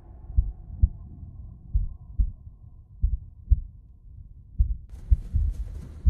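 Heartbeat sound effect from a film soundtrack: a slow beat of paired low thumps, lub-dub, about every second and a half. A brief hiss comes in about five seconds in.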